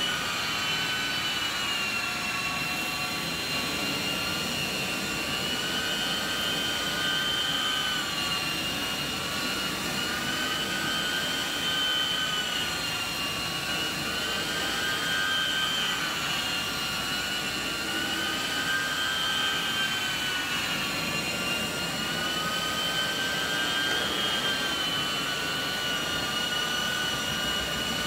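Rotovac rotary extraction wand running on carpet, fed by a truck-mounted hot-water extraction machine: a steady high-pitched vacuum whine over a rush of air, its pitch wavering slightly up and down every few seconds as the wand is worked back and forth.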